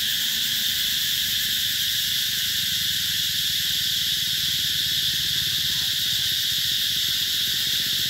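Cicadas calling in a steady, high-pitched chorus that holds without a break, with a low, fast-pulsing hum beneath it.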